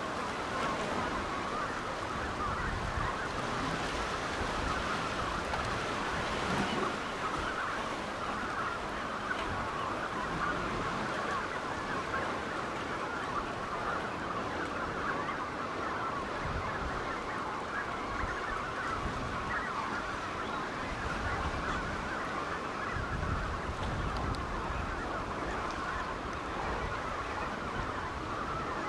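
A dense, continuous chorus of many birds calling at once, steady throughout, over a low rush of surf and wind.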